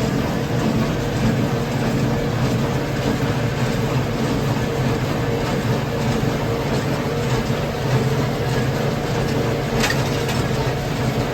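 Farmall 75C tractor's diesel engine running steadily under load while driving a Massey Ferguson 1840 small square baler, with one sharp click about ten seconds in.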